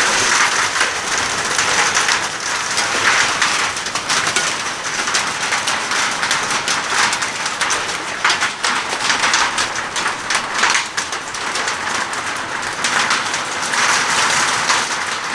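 Hail and heavy rain pelting a porch roof: a loud, dense clatter of countless small impacts, described as absolutely deafening.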